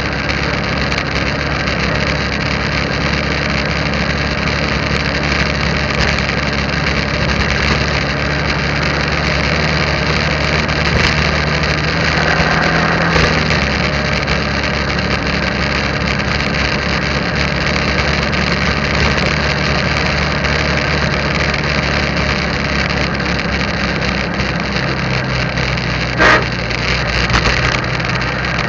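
Motorbike engine running steadily while riding, under a steady rush of wind and road noise. About halfway through, the engine note rises a little and then drops, and a brief loud sound stands out near the end.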